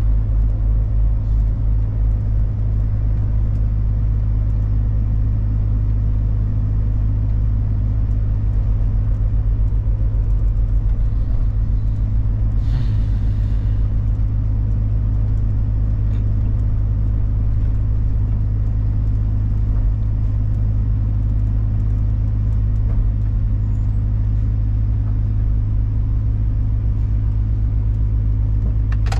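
Big truck's diesel engine running steadily, a constant low drone heard from inside the cab while driving. A short hiss breaks in about halfway through.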